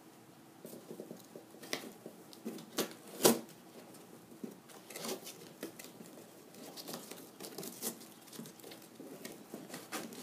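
Packing tape on a cardboard box being slit with a key and picked and peeled by hand: scattered scratches, crackles and light taps on the cardboard, with one sharper snap about three seconds in.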